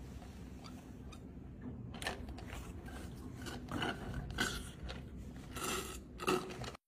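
Iced drink being sipped through a straw from a plastic cup: a run of short, irregular slurps from about two seconds in.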